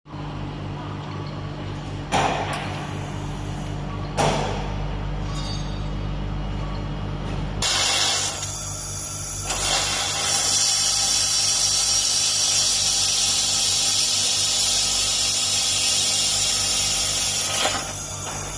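Handheld fiber laser welding machine: a steady machine hum with two short sharp sounds, then a loud, steady hiss of the laser weld for about eight seconds that cuts off suddenly near the end.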